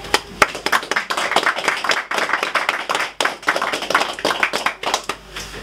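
A small audience applauding: many hands clapping irregularly, dying away near the end.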